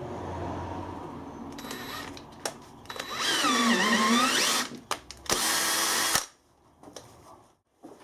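Hand-held power drill boring the radial grub-screw hole in a milling-cutter adapter. The motor whines loudly and its pitch sags as the bit bites, then recovers. A second loud burst of about a second follows, then it falls quiet.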